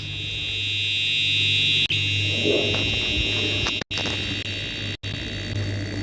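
Fire alarm sounding continuously as a steady, high-pitched electronic buzz. It cuts out for a split second twice in the second half.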